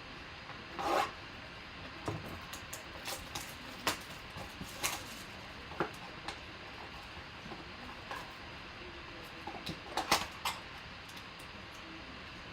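A box of Panini Optic football cards being handled and opened by hand: scattered clicks, taps and rustles of cardboard and packaging, with louder bursts about a second in and again near ten seconds.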